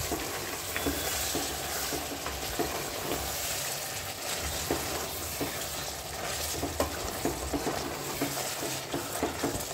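Chicken curry sizzling in an aluminium pressure-cooker pot while a wooden spatula stirs it, with a steady hiss and many short scrapes and knocks of the spatula against the pot.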